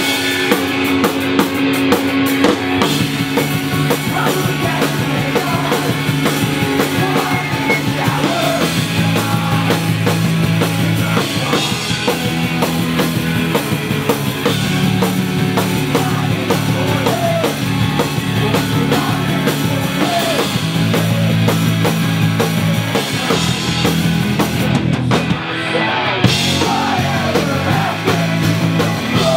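Pop-punk/post-hardcore band playing live at full volume: distorted electric guitars, bass guitar and a drum kit, with the full band coming in right at the start.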